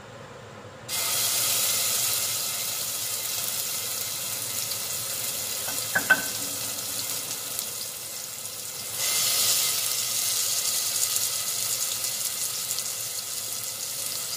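Ground spice paste of onion, garlic, ginger and habanero chilli hitting hot cooking oil in a stainless steel saucepan: a sudden loud sizzle about a second in that carries on frying. A sharp knock about six seconds in, and the sizzle swells again about nine seconds in.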